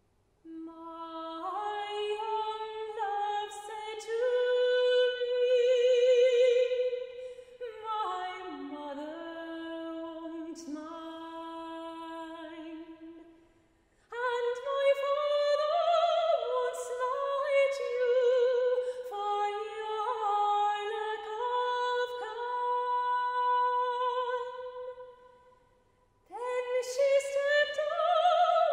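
A soprano singing alone, without piano, in long sustained phrases with vibrato, breaking off briefly twice, about halfway and near the end.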